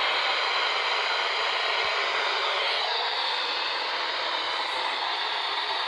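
Radio receiver static: a steady hiss from a weakly received station, with a faint wavering tone partway through.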